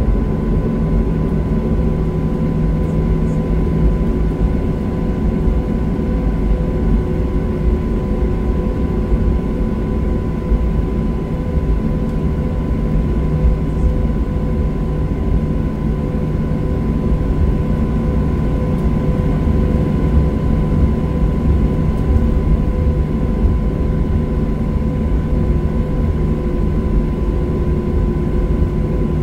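Steady jet engine and airflow noise inside the passenger cabin of a Boeing 737: a deep, even rumble with a few constant hums over it.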